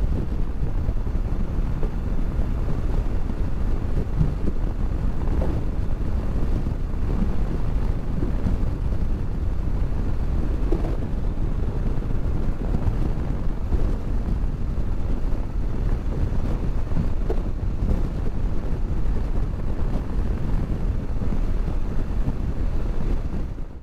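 Steady wind rushing over the helmet or body-mounted camera microphone of a motorcycle riding at road speed, with the bike running low underneath.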